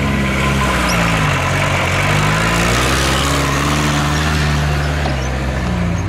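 An off-road 4x4's engine running with its revs falling and rising several times, under a steady rushing noise.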